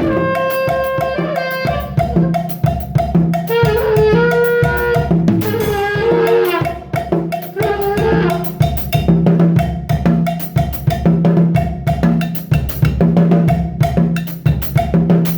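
A drum kit playing a busy, steady beat of kick, snare and cymbals along with a song whose melody runs over it.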